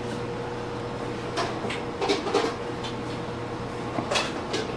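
Kitchen handling noise: a few short, light knocks and clicks, bunched near the middle and again near the end, over a steady electrical hum.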